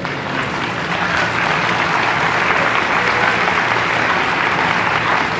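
Audience applauding, building over about the first second and a half and then holding steady.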